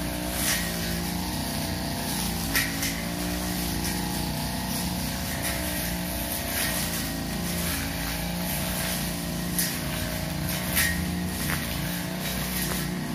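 Two-stroke '328' brush cutter engine running steadily at working speed while its 45 cm blade cuts grass, the pitch wavering slightly under load. About five sharp ticks come from the blade during the cutting.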